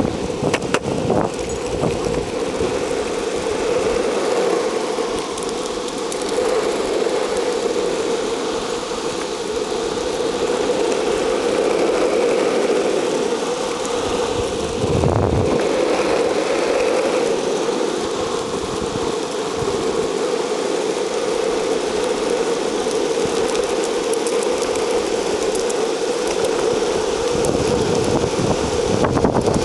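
Longboard wheels rolling steadily over pavement at speed: a continuous rumble with a steady hum.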